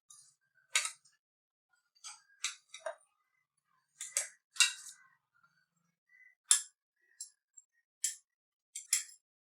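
Freshly ground herbal powder being tapped and scraped out of a mixer-grinder jar into a bowl: a series of short, irregular metal clinks and scrapes, the loudest about four and a half and six and a half seconds in.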